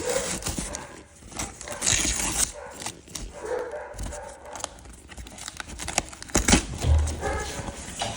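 A dog barking a few times, with scattered sharp clicks and rustles in between.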